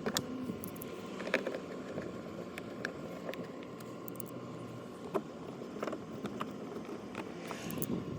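Scattered light clicks and taps of a screwdriver and screws being refitted in a car's door trim, over a steady low background hum.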